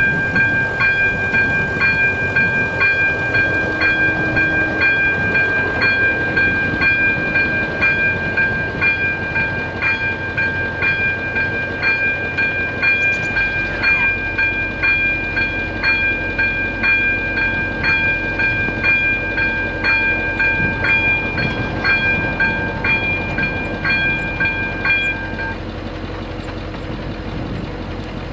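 AŽD ZV-02 electronic level-crossing bell ringing, about two strokes a second over a steady high tone. It cuts off near the end as the barriers close. From about halfway a car engine idles close by.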